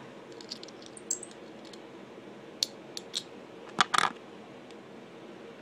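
Small clicks and taps of the cap on a handheld laser pointer being changed, with a louder cluster of clicks about four seconds in.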